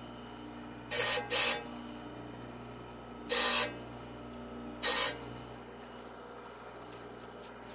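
Table saw running with a diamond blade, with four short hissing grinds as carbide-tipped saw teeth are pressed against the spinning blade to sharpen them, two in quick succession about a second in. After about five seconds the grinding stops and only the saw's steady hum remains.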